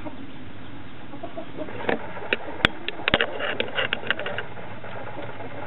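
Nagoya Cochin hens clucking over a steady background hiss, with a cluster of sharp clicks and ticks from about two seconds in until past four seconds.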